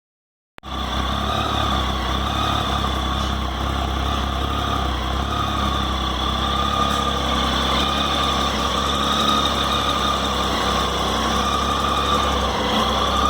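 Triumph Tiger 800 XCa's three-cylinder engine idling steadily, cutting in abruptly about half a second in, with a steady low rumble and a high, slightly wavering whine over it.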